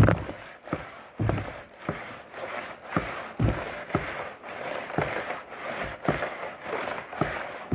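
Water and clothes sloshing in a small washer while it washes, with short knocks about two to three times a second.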